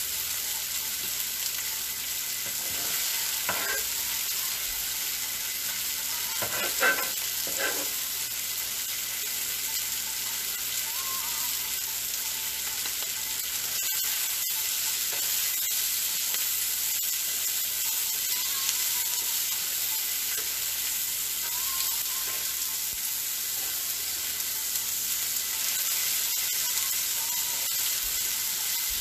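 Steak, onions and asparagus frying in oil on a stovetop griddle pan: a steady sizzle and crackle, with a few light knocks about three and seven seconds in.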